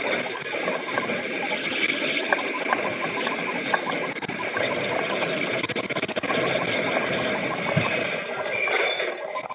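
Earthquake shaking heard through a low-quality CCTV recording inside a shop: a steady, noisy din with many small rattles and clatters scattered throughout.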